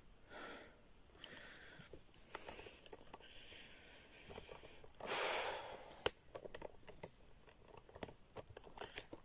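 Faint scattered clicks and scuffs of footsteps and loose stones on a rocky cave floor, with a louder rustling hiss about five seconds in.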